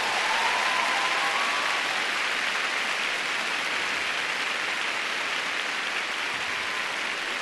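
Large arena crowd applauding steadily, easing off slightly toward the end.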